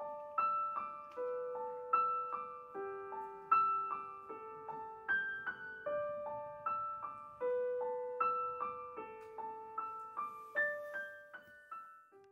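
Solo piano playing a gentle broken-chord pattern, single notes about two or three a second over longer held low notes. The notes thin out and stop near the end.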